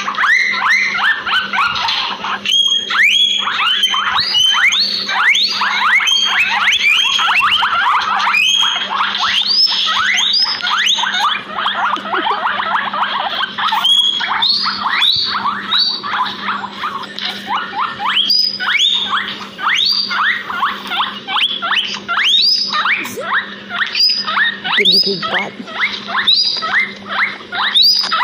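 Guinea pigs wheeking: a dense, unbroken stream of short squeaky calls, each sweeping up in pitch and falling back, many overlapping. A faint steady low hum runs beneath them.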